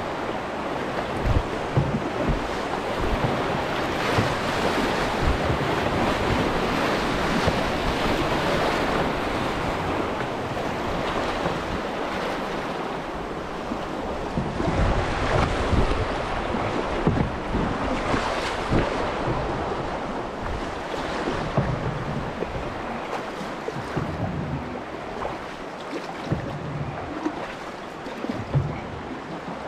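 Rushing river water running high through rapids, a steady noisy wash that swells and eases, with wind buffeting the microphone in low rumbles.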